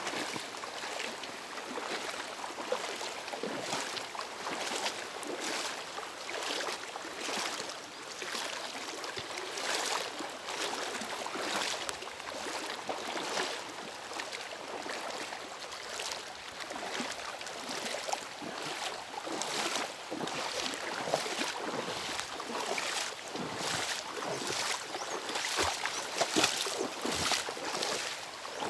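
Rubber boots wading through floodwater about boot-deep: a splash and slosh with each step, about one a second.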